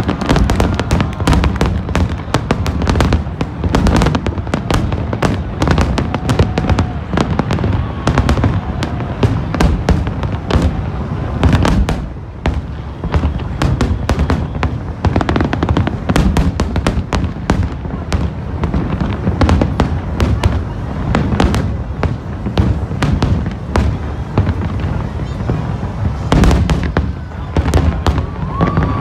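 Large aerial fireworks display: a rapid, unbroken barrage of bangs and crackling bursts over a low rumble, easing briefly partway through.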